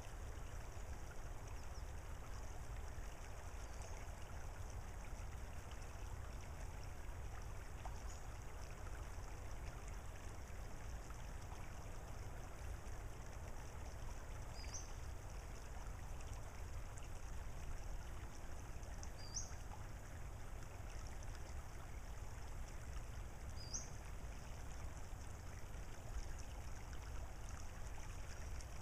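Steady soft hush of flowing water in a shallow tidal creek. Over it, a bird gives a short, high, upward-sliding call every few seconds, several times.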